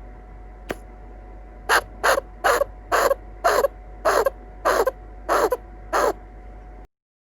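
Standard grey chinchilla giving its alarm call: about nine short, sharp barks, roughly two a second, each dropping slightly in pitch, starting a little under two seconds in. It is the warning cry of a chinchilla on alert.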